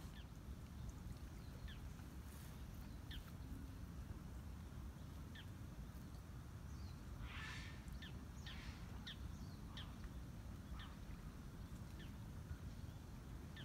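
Faint outdoor ambience of small birds calling: a series of short, high chirps, each falling in pitch, about one a second, with one harsher, noisier call about halfway through, over a steady low rumble.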